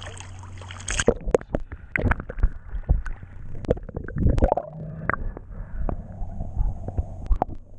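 Waterproof camera dipping under the sea surface about a second in: the open-air hiss of water at the surface cuts off and gives way to muffled underwater gurgling with scattered clicks and knocks as the snorkeler swims.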